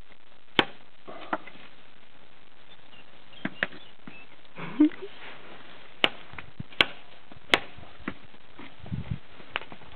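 Miniature horse's hooves knocking on concrete steps as it paws and steps about: sharp single clicks, unevenly spaced and a second or more apart. A brief muffled sound about five seconds in is the loudest moment.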